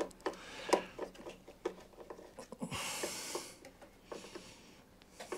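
Quiet clicks and scrapes of a hand tool turning small screws into a metal gear-housing plate on a cylinder mower, with a brief soft rush of noise about three seconds in.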